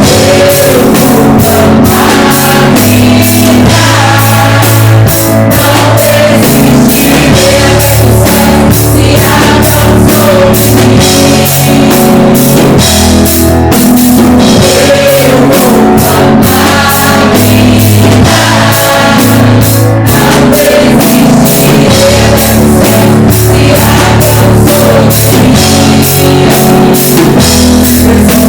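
Live worship band playing a praise song: drum kit keeping a steady beat under bass and guitar, with a voice singing over it.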